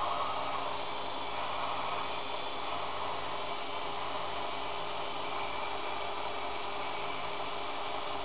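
Einhell BT-ML 300 mini lathe running steadily under load as a twist drill in the tailstock chuck bores into the end of a spinning brass rod: an even motor and gear whine over a hiss.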